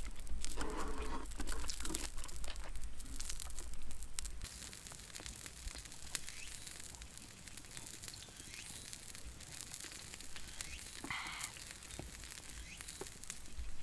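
Small wood campfire crackling, with sharp pops scattered throughout. A brief mouth sound from someone eating comes near the start.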